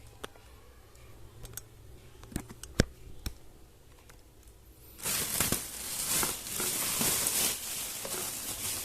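A few light clicks and taps of things being handled, then from about five seconds in a loud, continuous rustling and crinkling of packaging.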